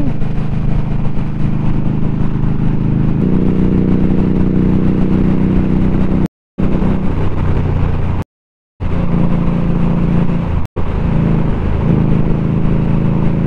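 Indian Scout motorcycle's V-twin engine running under way as the bike climbs a mountain road, its note changing about three seconds in. The sound cuts out briefly three times.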